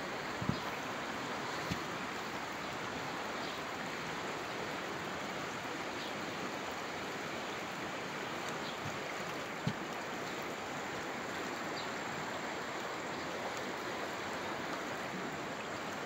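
Steady rushing of water flowing along a concrete channel and spilling over a low step, with a faint short knock now and then.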